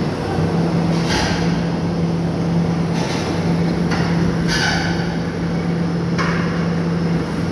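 Heavy excavator diesel engine running steadily, with a series of metallic clanks and scrapes, about one a second, from the steel crawler tracks and machines shifting on the ship's steel deck.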